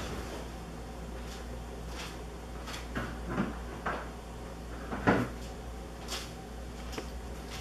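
A hedgehog scrabbling and bumping inside a cardboard toilet paper tube: a few short knocks and scrapes, the loudest about five seconds in, over a steady low hum.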